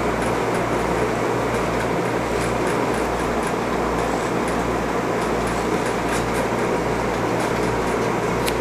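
Small Fiskars scissors snipping Angora rabbit wool: faint light clicks scattered through, over a steady machine hum and rushing air noise.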